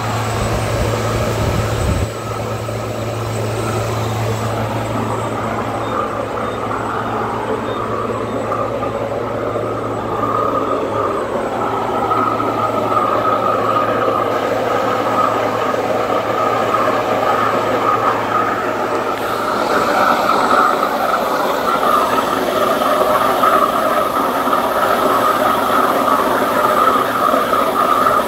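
Techni Intec 612 abrasive waterjet cutting: the 66,000 psi stream gives a loud, steady hissing rush as it strikes the work and the water-filled table. A low hum sits under it until about two-thirds of the way through.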